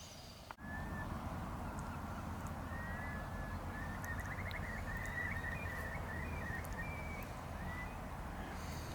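Birds calling: short chirps and brief pitch glides with a quick trill in the middle, over a steady outdoor background hiss. The sound begins abruptly about half a second in.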